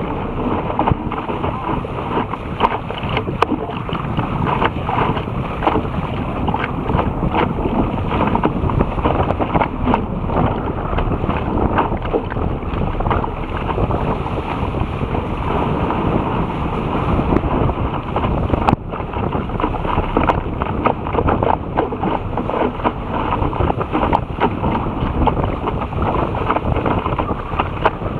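Water rushing and splashing along the bow of a Topper Topaz sailing dinghy driving fast through chop, with wind buffeting the bow-mounted camera's microphone. Irregular slaps of spray and chop hit throughout over the steady rush.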